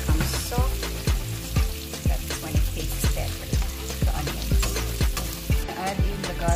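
Sliced onions sizzling in a hot frying pan while a plastic spatula scrapes and stirs them, over background music with a steady beat of about two a second.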